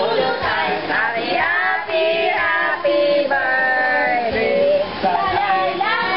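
A woman singing karaoke over the backing music of a videoke machine, amplified through its loudspeaker.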